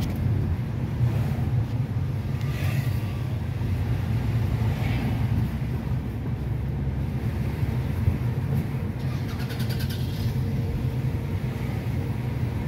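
Steady low rumble of road and engine noise heard from inside a moving car, with a few brief higher hisses from passing traffic, the longest about nine seconds in.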